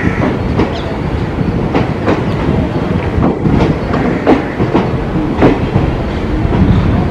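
Train wheels clacking over rail joints during shunting: sharp, irregular clacks about once a second over a steady low rumble.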